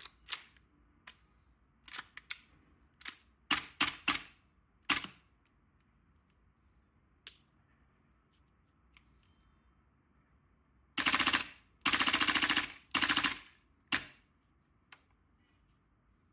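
Gas blowback airsoft rifle (MWS-based AR15 build) firing: a string of single shots, then near the end three short fully automatic bursts.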